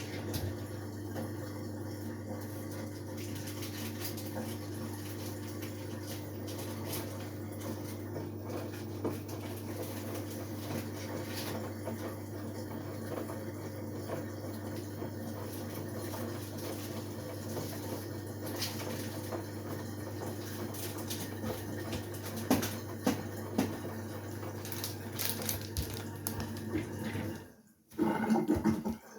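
LG Direct Drive 8.5 kg washing machine running mid-cycle: a steady hum with water swishing in the drum. The sound cuts out briefly near the end, then comes back louder and more uneven.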